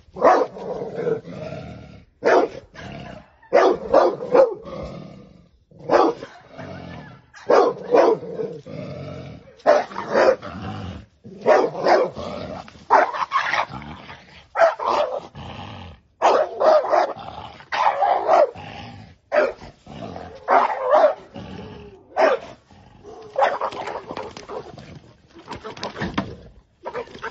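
Dog barking repeatedly at a snake it is fighting, in loud sharp barks that come in clusters every second or two.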